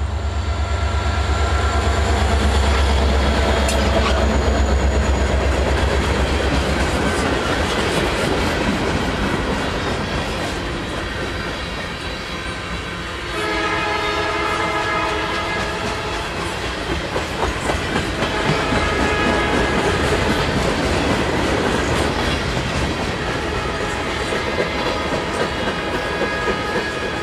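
A Norfolk Southern diesel-hauled mixed freight passing close by: the locomotive's engine rumbles low as it goes past and fades over the first several seconds, then boxcars and tank cars roll by with wheels clacking over the rail joints. About 13 seconds in, a train horn chord sounds for a few seconds, with fainter horn tones again a little later.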